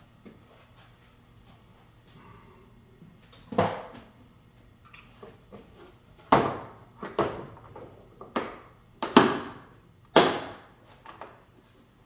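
Tools and parts being handled and set down on a workbench: about seven separate clunks and rattles, spread over the second half, each fading quickly.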